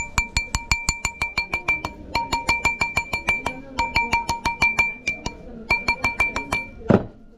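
Quick hammer taps on a ring seated on a steel ring mandrel, about six a second in short runs with brief pauses, each strike making the mandrel ring with a clear tone. The ring is being trued round on the mandrel after its new band was soldered. One louder, duller knock comes near the end.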